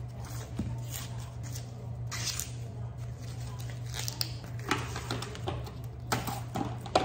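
Husks being torn and stripped off an ear of fresh corn, a series of short rustling rips. Near the end, plastic cling wrap crinkles as it is pulled out and laid flat.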